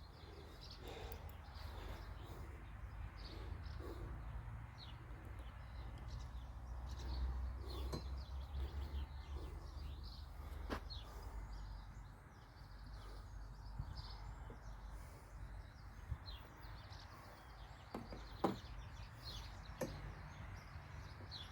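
Faint outdoor ambience: a steady low rumble with scattered small bird chirps, and a few light clicks of parts being handled.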